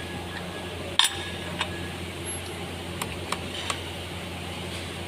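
Five sharp metallic clinks, the loudest about a second in and three close together past the middle, over a steady low hum.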